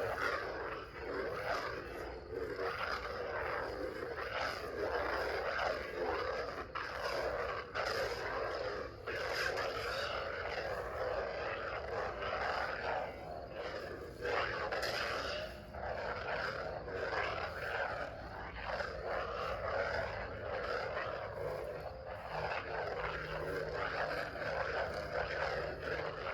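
Theory Sabers Soldier lightsaber's sound board humming, swelling and falling with each swing of the blade.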